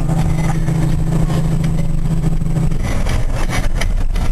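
Semi truck's diesel engine running steadily, heard from inside the cab while driving a rough dirt road. About three seconds in the steady engine note drops away and a run of knocks follows.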